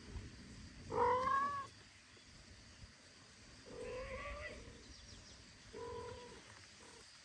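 Kitten mewing three times: a loud cry about a second in, then two softer calls around four and six seconds in.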